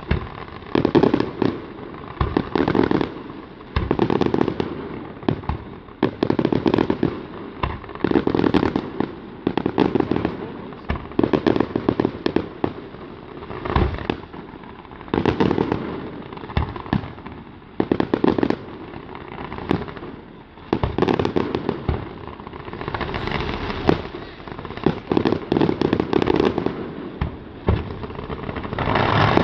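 Display fireworks going off in quick succession: repeated sharp shell bursts, each with a rumbling echo, mixed with bursts of crackling.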